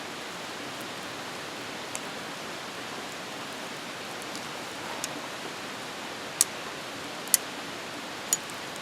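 Steady hiss of rain with a handful of sharp pops from a wood campfire crackling.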